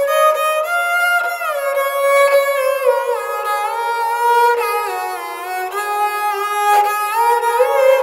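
Dilruba being bowed solo: a slow melody of long held notes joined by smooth slides up and down between pitches.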